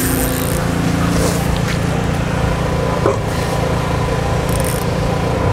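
A motor running steadily, with a constant noisy hiss over its drone.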